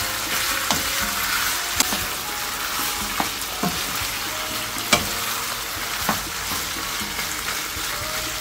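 Sliced pork belly in a gochujang-based sauce sizzling in a nonstick frying pan over medium heat as it is stir-fried with a wooden spatula. The spatula knocks against the pan now and then.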